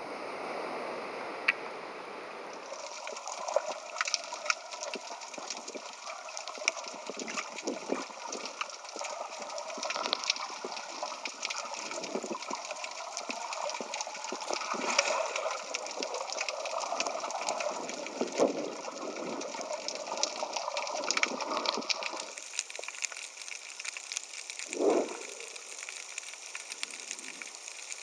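Water gurgling and sloshing around an underwater camera, with many small crackles and clicks. In the first few seconds it is shallow surf and wind at the water's edge instead. One short, deeper surge comes near the end.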